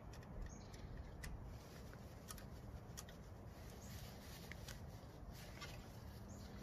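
A few faint, scattered small clicks from a screwdriver and wires being worked into a screw terminal block, over a low rustle of handling.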